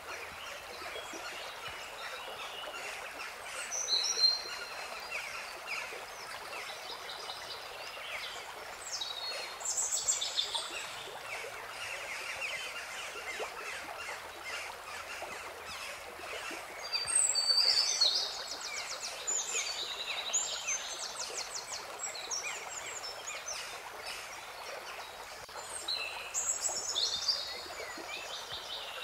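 Birds chirping and singing in short phrases a few seconds apart, one of them a fast trill, over the steady rush of running water.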